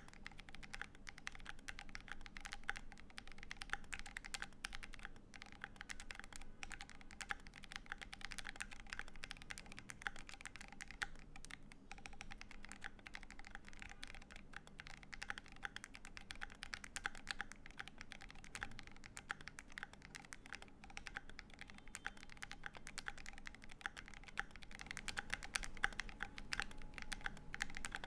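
Continuous fast typing on a Keychron Q1 mechanical keyboard fitted with lubed Tecsee Sky Blue tactile switches: a steady stream of keystroke clacks, a little louder near the end.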